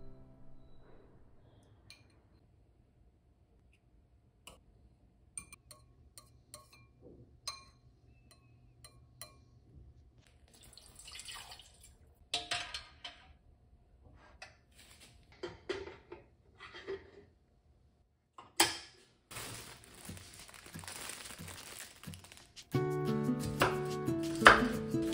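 Kitchen handling sounds: clinks of metal utensils and ceramic bowls, and water poured from a small steel measuring cup into the outer pot of a Tatung electric rice cooker. A sharp click is followed by a steady hiss for a few seconds. Background music fades out at the start and comes back near the end.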